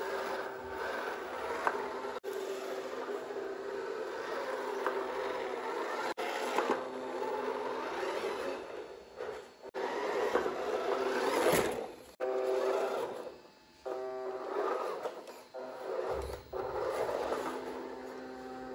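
Small electric motor and gears of a toy radio-controlled SUV whining as it drives through sand, over a grainy scraping. The sound breaks off abruptly several times and picks up again.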